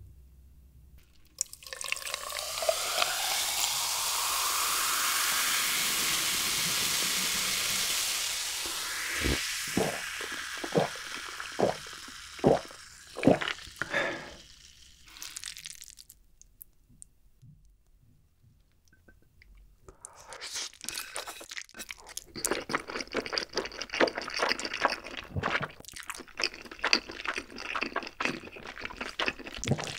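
Cola poured from a plastic bottle into a glass of ice: a fizzing hiss whose pitch rises as the glass fills, followed by sharp clinks and crackles of ice and fizz. After a few seconds' pause, sauce-coated noodles are mixed with chopsticks and a large spoon, a dense run of wet, sticky clicks.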